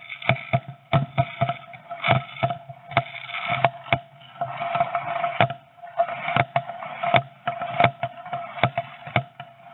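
Rapid, irregular bangs and crackles of New Year's Eve fireworks and firecrackers, heard through a nest-box camera's small microphone over a steady tone.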